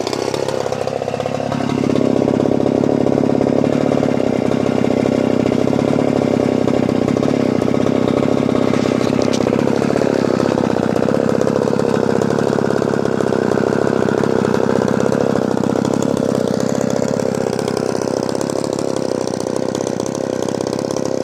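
Solo 605 two-stroke chainsaw engine running. It speeds up about two seconds in and then runs fast, its pitch wandering up and down.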